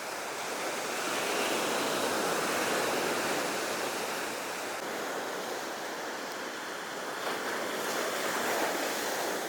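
Ocean surf washing onto the beach, a steady rushing that swells about a second in, eases, and swells again near the end.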